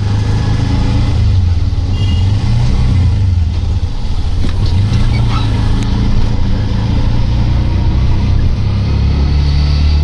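Auto-rickshaw's small engine running as it drives along, heard from the open passenger seat: a loud, steady low drone whose pitch shifts a little as the speed changes, with road and traffic noise around it.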